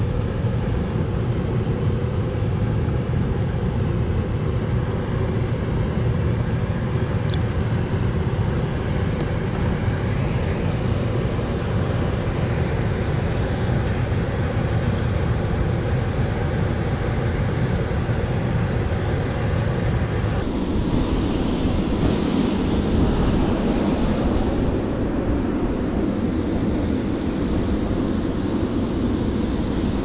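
Steady rushing of fast-flowing river water, with wind buffeting the microphone. The sound shifts abruptly about twenty seconds in.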